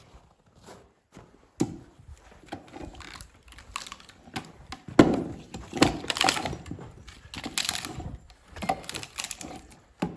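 Irregular knocks and cracks of wood, in loose clusters, loudest about halfway through, as a large round being split comes apart.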